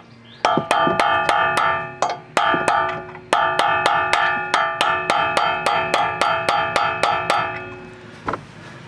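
Hammer blows driving a rust-seized rear suspension bolt out through its bushing, each strike ringing with a metallic tone. They come in runs of about four blows a second, with two short breaks, and a single last blow near the end.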